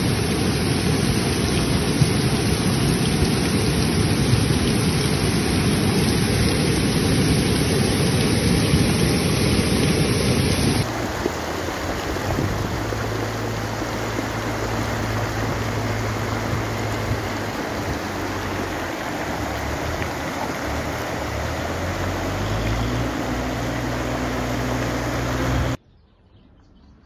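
Muddy floodwater rushing over fields and a dirt road after a heavy downpour, a loud steady rushing noise. About eleven seconds in it changes to a second, slightly quieter stretch of flowing water with a low steady hum underneath. Near the end it drops away to quiet.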